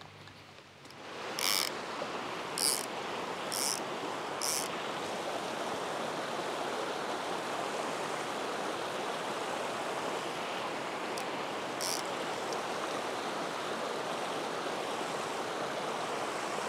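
Small mountain creek flowing over rocks and logs, a steady wash of water that comes in about a second in. Four short, sharp high-pitched sounds stand out over it in the first few seconds, and one more near the end.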